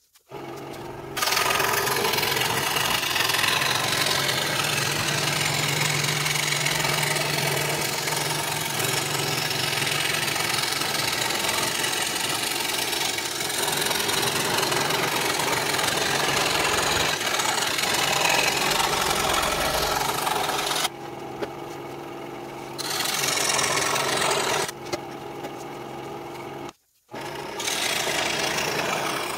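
Electric scroll saw running, its reciprocating blade cutting through thin wood with a steady rasping buzz over a low motor hum. The sound starts just after the beginning, drops in level twice in the last third and stops for a moment a few seconds before the end.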